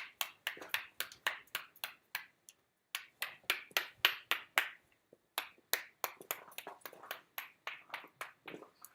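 A quick series of sharp, ringing taps or knocks, about three a second, pausing briefly twice.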